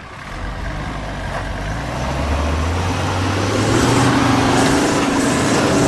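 Toyota 1PZ 3.5-litre five-cylinder diesel in a J70 Land Cruiser, driving up and getting louder as it comes close, its engine note rising slightly about two seconds in.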